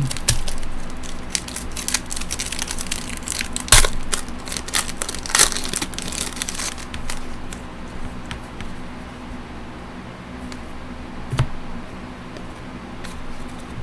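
Foil wrapper of a trading-card pack crinkling and tearing as it is opened, with two sharper crackles about four and five and a half seconds in. After that it goes quieter, with a few small clicks as the cards are handled.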